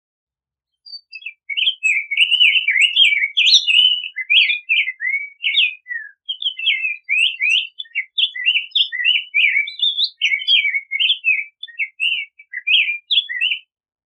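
Rose-breasted grosbeak singing: a long warbled song of quick slurred whistled notes that starts about a second in and runs until shortly before the end, with only brief gaps.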